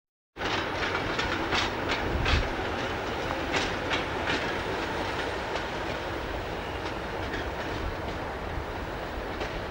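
Class 37 diesel locomotive running past on its own, with a steady mechanical noise and irregular sharp clicks from its wheels passing over rail joints and pointwork.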